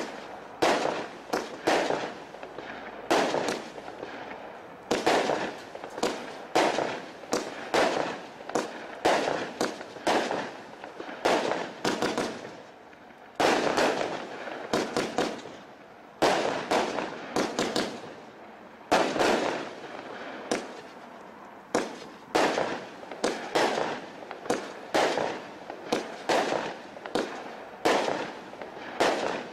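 Ejecta consumer firework cake firing a rapid series of shots and bursts, about two bangs a second, with brief lulls now and then.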